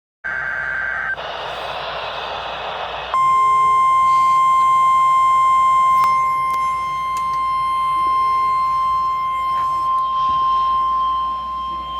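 Emergency alert broadcast: about three seconds of harsh, buzzing digital header data, then the loud, steady single-pitch 1050-hertz weather radio warning alarm tone, held for about nine seconds.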